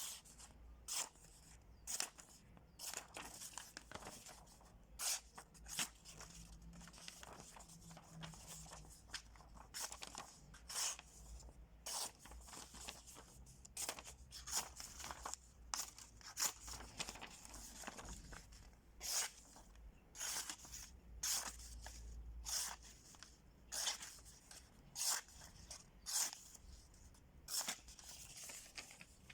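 A double-edged automatic knife blade making short tearing, crunching cuts, one or two a second in an irregular run. The blade is being tested for sharpness; the reviewer says it does not come very well sharpened.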